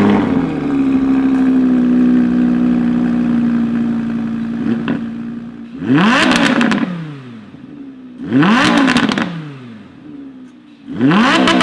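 Audi R8 V10 on its stock exhaust: the engine holds a steady, slightly falling note for about five seconds, then is revved in three sharp blips about two and a half seconds apart, each rising quickly and falling back.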